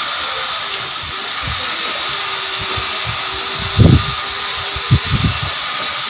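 Steady hiss, with a few low thumps, the loudest about four seconds in and another about five seconds in.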